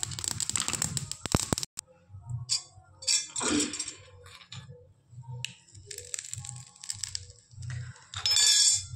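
Mustard seeds crackling and spluttering in hot oil in a steel ladle over a gas flame, cut off suddenly a little under two seconds in. Background music with a steady low beat follows, broken by a couple of short crackling bursts, the loudest near the end.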